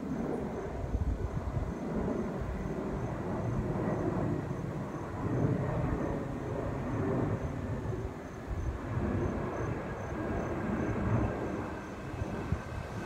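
Twin-engine jet airliner passing overhead: a steady jet engine rumble with a faint whine that dips slightly in pitch near the end.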